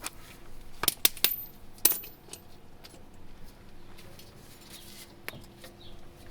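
Metal tools and suspension parts being handled: a few sharp metallic clinks about a second in, one of them ringing briefly, then scattered lighter ticks and clicks.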